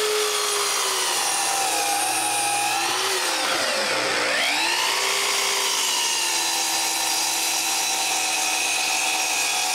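Mitre saw motor running with a steady high whine as its blade cuts through a glued-up plywood stack. About three to four seconds in, the pitch drops sharply under the load of the cut, then climbs back and holds steady.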